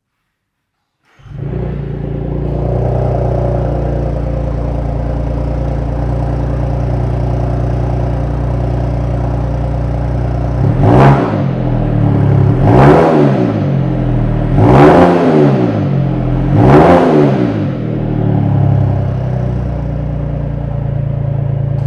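BMW B38 1.5-litre three-cylinder engine running through a valved catback exhaust with quad tips. It comes in about a second in and idles steadily, then is blipped four times about two seconds apart, each rev rising and falling back to idle.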